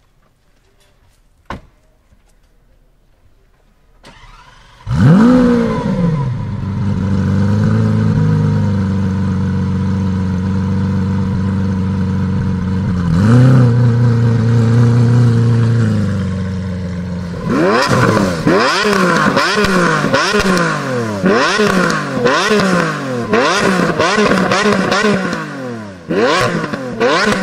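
Lamborghini Aventador SV's 6.5-litre V12 with the factory race exhaust, cranked and catching about five seconds in with a loud flare, then settling to a steady high idle with one quick blip. In the second half it is revved over and over in short, rapid blips, each rising and falling.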